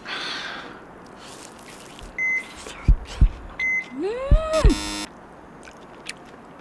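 A breathy exhale, then video-game-style editing sound effects: two short high beeps about a second and a half apart, a few heavy bass thumps, and an electronic whoop that rises then falls into a short buzz. The buzz marks a lost life on the on-screen hunger-challenge meter.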